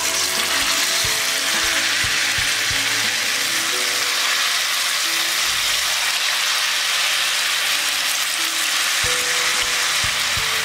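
Battered baby corn pieces deep-frying in hot oil in a kadai: a loud, steady sizzle that starts suddenly as the first pieces go in.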